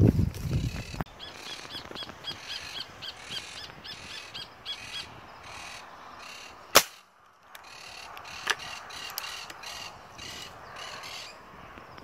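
Monk parakeets squawking over and over, with about a second of rustling at the start. A single sharp crack from a .25-calibre spring-piston Benjamin air rifle shot comes about seven seconds in, followed a second and a half later by a fainter click, and the squawking goes on after the shot.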